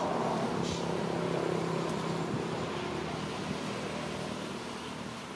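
A motor vehicle's engine running, a steady drone that fades away over a few seconds as it passes.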